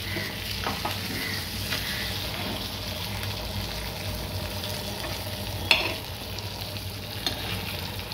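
Pomfret sizzling as they shallow-fry on a flat metal tava. A metal turner scrapes and clinks against the pan a few times as the fish are pressed and turned, loudest a little before six seconds in.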